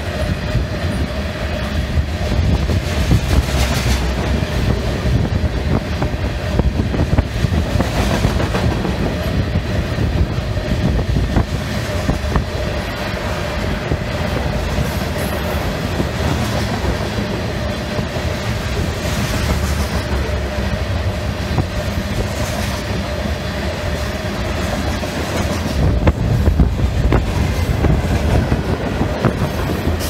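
Freight train cars rolling past close by, covered hoppers and then tank cars, their wheels clacking over the rail joints. Strong wind buffets the microphone with a heavy low rumble.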